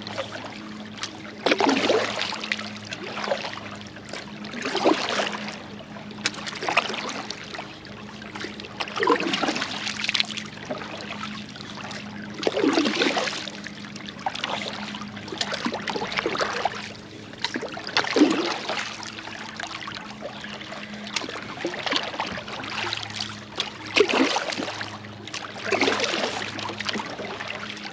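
Kayak paddle strokes: the blade dips and pulls through the water with a splash every second or two, and water trickles off the blades between strokes.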